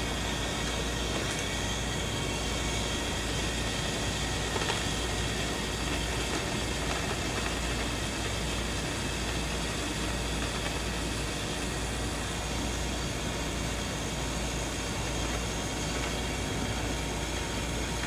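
Steady mechanical hum with hiss, holding one level throughout, with a strong low rumble and a few faint steady tones.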